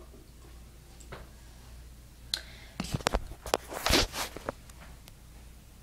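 Handling noise: a cluster of sharp clicks, taps and short rustles between about two and a half and four and a half seconds in, loudest near four seconds, as the recording phone is moved about.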